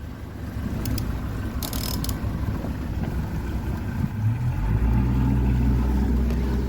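Panga's motor running underway, with wind and water rush. About four seconds in the engine grows louder and settles into a steady low hum. There is a brief scraping hiss near two seconds in.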